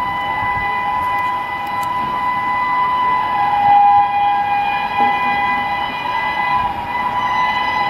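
Horn of the Mumbai Rajdhani Express's locomotive sounding one long, unbroken blast of two steady tones as the train approaches at speed.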